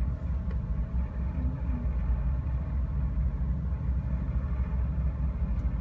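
A ferry under way: a steady low rumble of engine and water noise.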